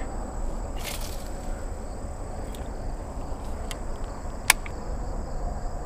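Baitcasting reel clicking once as its handle is turned to engage the spool after a cast, about four and a half seconds in, over a low steady rumble on the microphone, with a short rush of noise about a second in.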